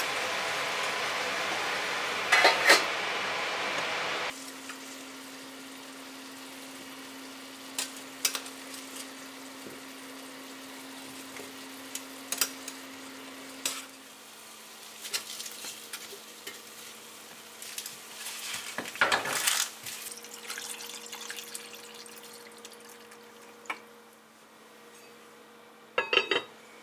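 Beef and potato sizzling in an enameled cast-iron pot for about four seconds, stopping abruptly; then metal tongs clink and scrape against the pot while stirring, with a louder clatter about two-thirds of the way through and a pot lid clattering on near the end.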